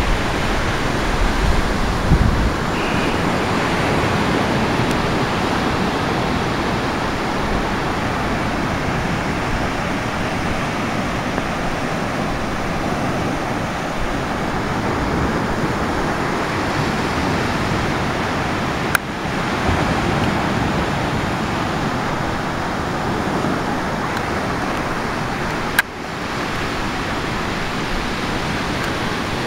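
Ocean surf breaking steadily on a beach, with wind buffeting the microphone for the first couple of seconds. Two brief clicks, one past the middle and one near the end.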